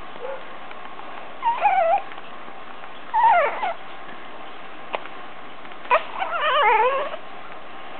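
A seven-week-old infant fussing: three short, wavering cries, the longest about six seconds in.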